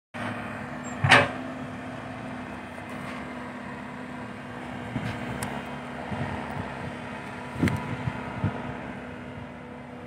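Komatsu PC120-5 hydraulic excavator's diesel engine running steadily as it digs sand, with a few sharp knocks and clanks. The loudest knock comes about a second in and another just before eight seconds.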